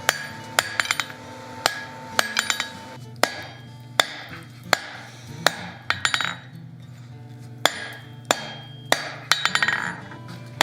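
Hand hammer striking hot steel on an anvil with irregular blows about one to two a second, some in quick bouncing clusters, each with a short metallic ring. The blows are forging down the waist and hips of a small figure.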